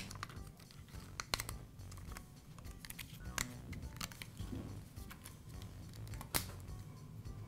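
A thin protective film sheet being handled and pressed into place around the brush holders in a rotary tool's plastic housing: scattered small crackles and clicks, the sharpest about six seconds in.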